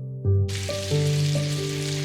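Soft background piano music; about half a second in, a steady hiss starts up under it and carries on.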